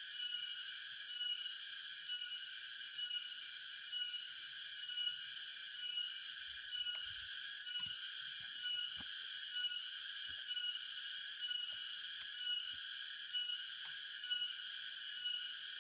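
Insects droning in a steady high chorus that pulses about one and a half times a second, with a few faint knocks from handling.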